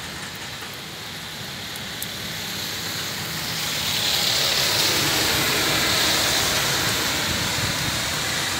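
Rain falling on a wet street, its steady hiss growing louder about three seconds in, mixed with the tyre and engine noise of passing traffic.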